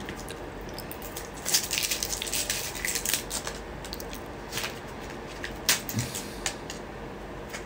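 Soft rustling and crackling with light clicks, in two spells a couple of seconds apart, over a faint steady background hum.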